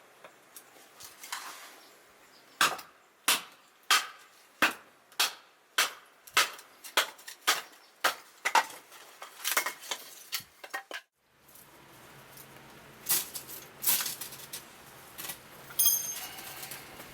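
A series of sharp knocks, about one and a half a second and quickening slightly before stopping. Then a steadier crackling background with scattered clicks and a short high metallic ring near the end.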